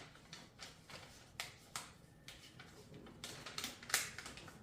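A sheet of paper being handled, folded and creased by hand into an origami fortune teller: a series of short, sharp paper crackles and rustles, the loudest near the end.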